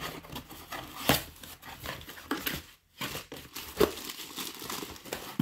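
Cardboard packing inserts being handled and pulled out of a mixer-grinder box: cardboard rustling and scraping, with a few sharp knocks at irregular intervals.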